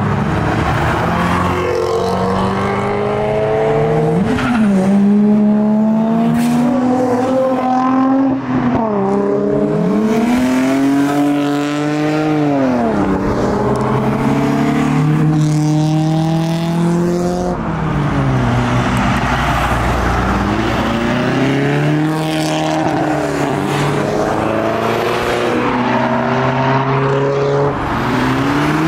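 Modified car engines accelerating away, the engine note climbing and dropping back again and again as they rev and change up through the gears.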